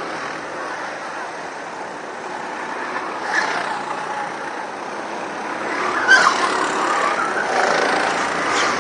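Go-kart engines running as several karts race round a track, the sound swelling as they come close about six seconds in.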